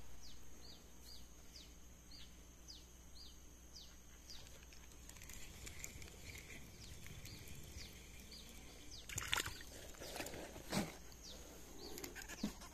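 A bird calling outdoors in a string of short, high, falling chirps, about two a second, over faint open-air background. Near the end a few louder sudden knocks and rustles break in.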